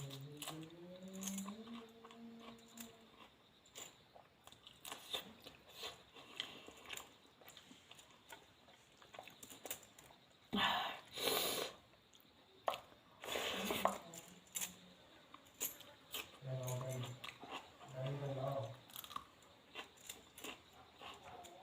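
Close-up sounds of a person eating a meal of dal and rice: steady chewing with small wet clicks, and two louder noises about ten and thirteen seconds in. Two short hummed voice sounds come near the end.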